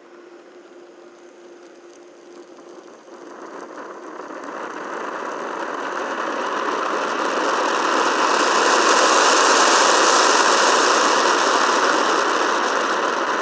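Oxy-acetylene welding torch flame hissing, growing steadily louder over several seconds as the oxygen valve is opened and the flame is brought to neutral, then easing slightly near the end.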